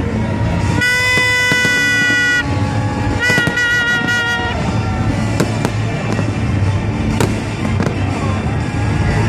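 Fireworks bursting in rapid bangs and crackles over a steady low din. Two long, steady-pitched toots sound over them, one about a second in and another about three seconds in, the second wavering in pitch.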